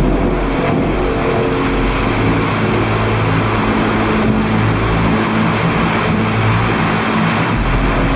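Loud low droning made of several steady tones that hold and then shift in pitch, over a constant hiss and a deep rumble that briefly drops out a few times.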